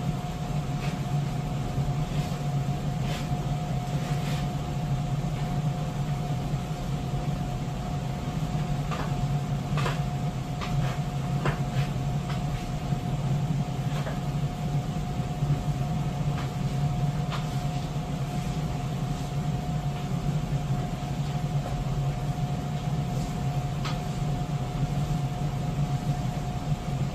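A steady low mechanical hum with one constant higher tone, over which hand tools give scattered light clicks and knocks as they work on the tractor's clutch area.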